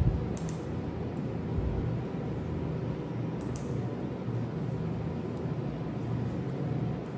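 Steady low background hum, with two brief high clicks from surgical instruments being handled during suturing, about half a second in and about three and a half seconds in.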